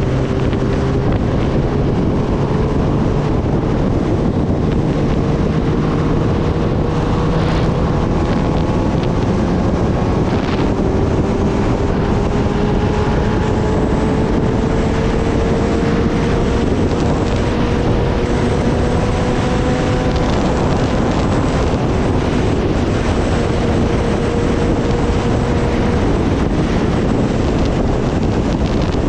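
Loud, steady wind rush on the microphone at riding speed. Under it, the Kawasaki Ninja ZX-10R's inline-four engine hums, its pitch slowly rising over most of the stretch as the revs build, then dropping away briefly before returning.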